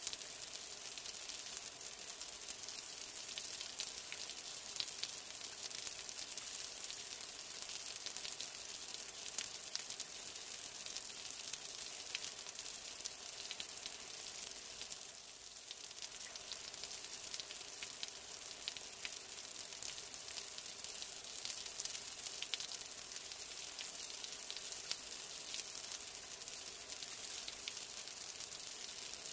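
Steady rain, a dense hiss with many sharp droplet ticks throughout. It eases briefly about halfway through.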